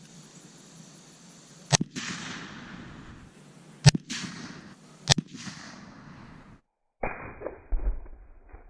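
Three gunshots, each a sharp crack followed by an echo rolling off; the second comes about two seconds after the first and the third about a second later. After a short silent break, a couple of dull, muffled thumps.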